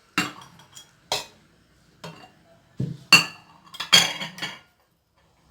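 Kitchen dishes and utensils clinking and knocking: about six separate sharp hits, the loudest around three and four seconds in, as things are handled and set down.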